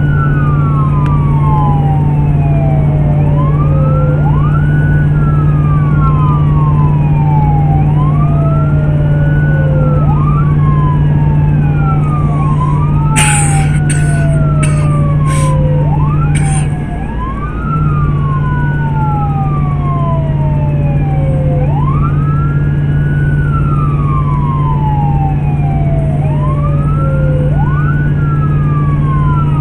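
Emergency vehicle's siren wailing, heard from inside the cab while driving. Each cycle is a quick rise and a long falling glide, repeating about every four and a half seconds over a steady low drone of the vehicle. A few sharp clicks come around the middle, just before the drone dips briefly.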